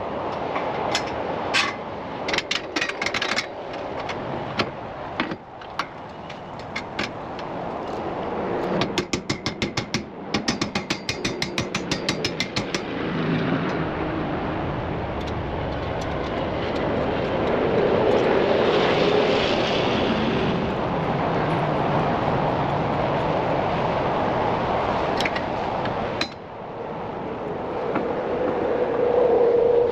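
Cordless drill running under load while mounting rack brackets to a trailer floor, with scattered clicks and a run of rapid clicking partway through, then a long stretch of steady motor whine.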